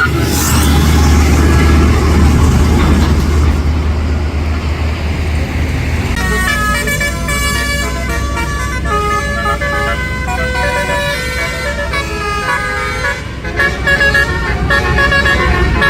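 A tour bus rushing past with a low engine hum and road noise, then, about six seconds in, a multi-note telolet horn plays a tune of stepping notes over the engine, with a brief break near the end.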